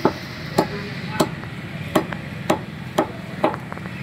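Butcher's cleaver chopping a dressed country chicken on a wooden block, cutting through at the neck: about seven sharp chops at a steady pace of roughly two a second.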